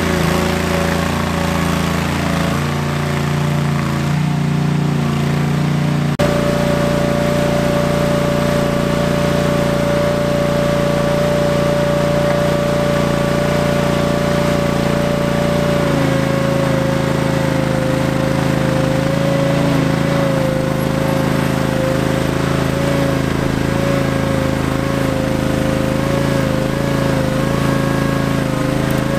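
Ingersoll 7020L garden tractor engine running steadily, with a steady high whine over it. The pitch drops slightly about sixteen seconds in.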